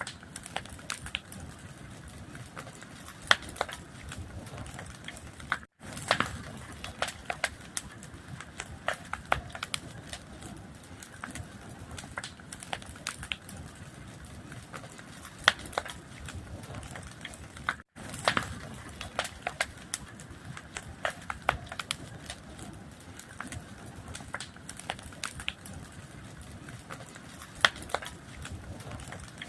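Fire crackling: a steady low rush, with frequent sharp pops and snaps scattered irregularly. The sound breaks off to silence for an instant twice.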